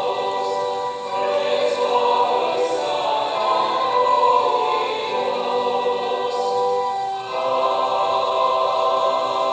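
A choir singing slow, sustained chords that change every couple of seconds.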